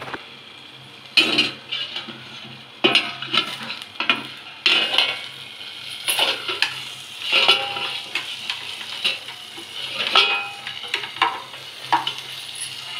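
Green chillies frying in masala in a steel kadhai, sizzling, with irregular clinks and scrapes of a metal spoon against the pan and its steel lid about every second or so.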